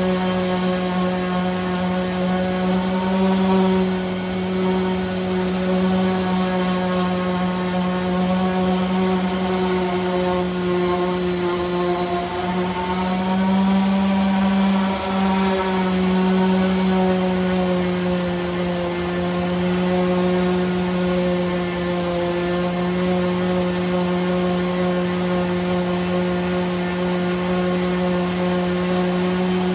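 Electric random orbital sander running steadily on a wooden door, a hum with a hiss of sandpaper on wood, its pitch wavering slightly about halfway through as the pressure on it changes.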